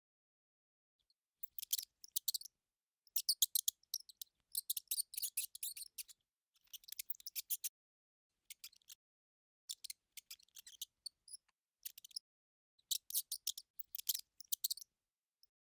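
Mouse squeaking sound effect: quick, high-pitched squeaks in short clusters with brief pauses, repeating throughout.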